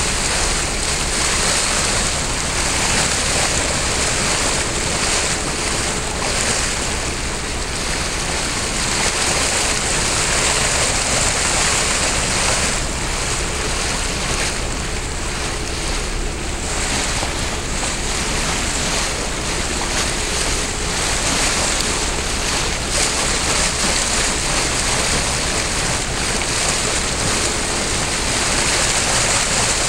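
Steady rush of open water where tidal currents meet, mixed with wind buffeting the microphone.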